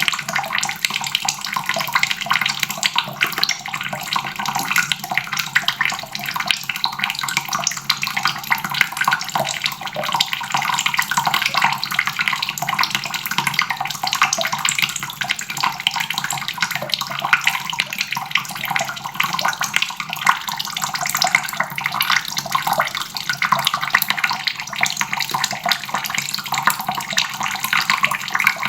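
Water faucet running steadily, its stream splashing into a basin with a continuous rushing, spattering sound.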